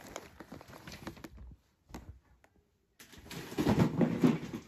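A cardboard Lego set box being handled close to the microphone: faint scattered taps and rustling, a drop to near silence in the middle, then louder knocks and rustling near the end.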